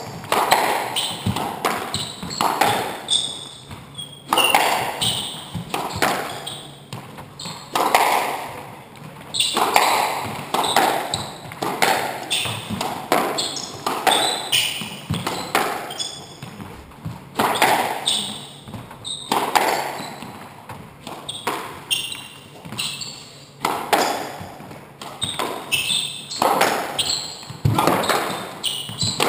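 Squash rally: the ball is struck by the rackets and smacks off the walls again and again, about one hit every half second to a second. Each hit rings on in the enclosed court.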